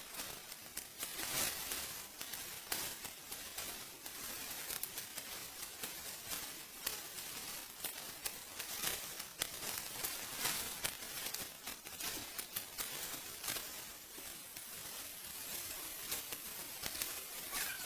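Dense, irregular crisp rustling and crackling of dry rice stalks and straw being handled.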